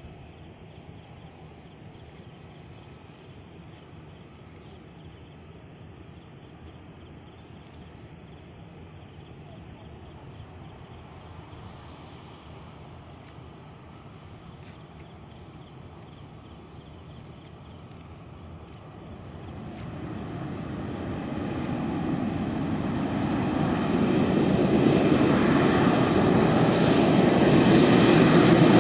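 Jet airliner's engines, faint and distant at first, then growing steadily louder over the last third as the aircraft comes closer.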